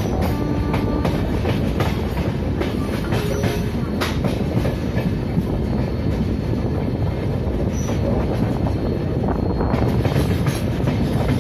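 Humsafar Express coaches running at speed over the rails, wheels clattering steadily over rail joints and station points with rapid clicks, and a brief squeal about half a second in.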